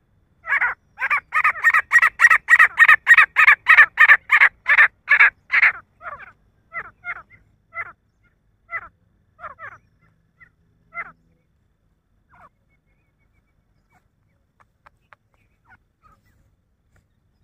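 Male grey francolin calling: a rapid run of loud, harsh, repeated calls, about three a second, that then thins out into scattered fainter notes and stops about two-thirds of the way through.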